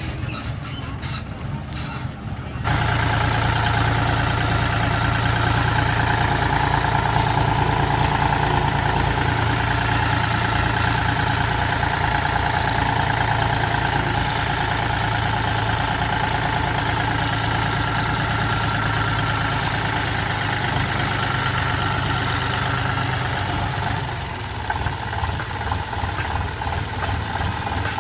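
Heavy diesel engine of earth-moving machinery running steadily at high revs. It comes in abruptly a couple of seconds in and drops back near the end.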